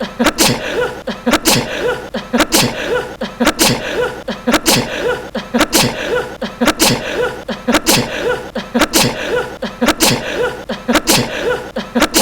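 A young man's short, high sneeze repeated over and over in quick succession, a couple of sneezes each second, as an edited loop.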